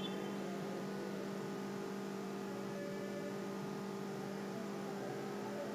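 Steady low electrical hum with faint hiss: the background noise of the recording setup, unchanging throughout.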